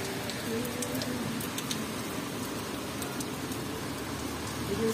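Steady rain hiss, with scattered sharp ticks of drops striking hard surfaces.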